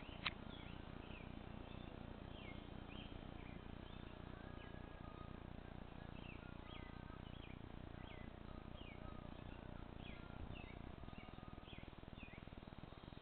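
Faint outdoor ambience of small birds chirping in the trees, many short sliding chirps a few times a second, over a low steady background hum. A single sharp click sounds just after the start.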